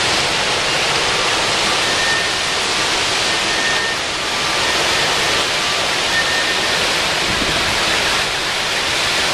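Torrential wind-driven rain in a severe storm: a steady, loud rush of downpour and gusting wind.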